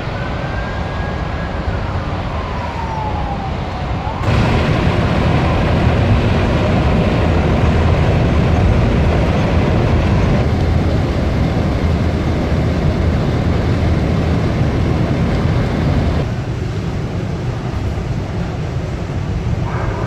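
An emergency siren wailing, rising then falling in pitch, for about four seconds. Then, after a cut, a louder steady rushing roar of natural gas escaping from a burst pipe and burning as a tall jet of flame, easing slightly near the end.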